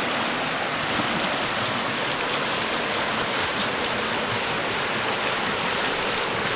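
Small creek running over stones: a steady rush of flowing water.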